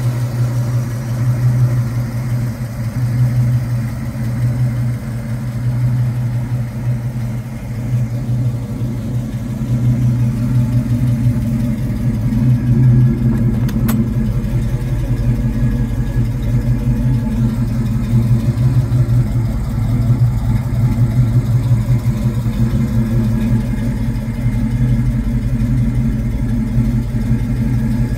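A 1967 Ford Mustang GT's 390 big-block V8 (S-code), running through its dual exhaust and idling steadily with a deep, even rumble.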